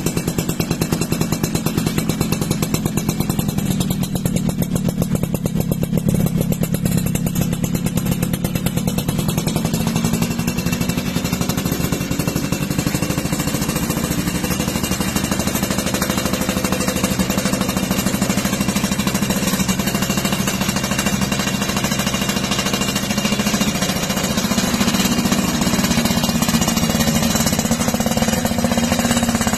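Suzuki Crystal's two-stroke 110 cc single running on its stand through a BPAZZ aftermarket racing exhaust, with a rapid, even popping beat from the exhaust. It gets a little louder over the last few seconds.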